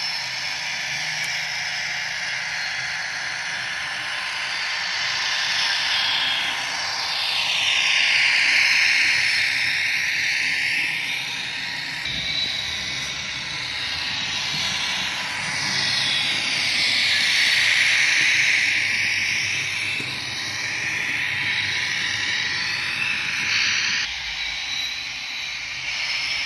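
HO-scale Fiat ALn 556 railcar model with DCC sound running around the track: a steady hissing running sound that swells twice as it passes close by.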